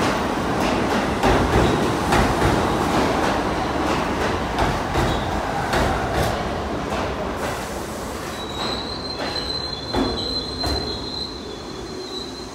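R68 subway train running on the rails with a rumble and repeated clicks from the wheels over the rail joints, growing gradually fainter. About two-thirds of the way through, a high steady wheel squeal sets in and holds.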